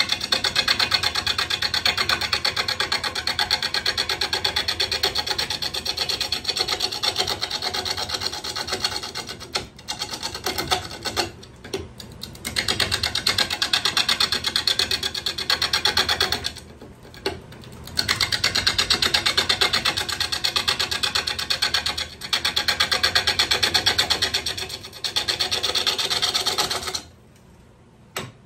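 Bowl gouge cutting a red cedar bowl blank spinning on a wood lathe: a fast, even rattling of the tool edge against the wood, in long passes broken by short pauses where the cut is eased off. The cutting stops about a second before the end.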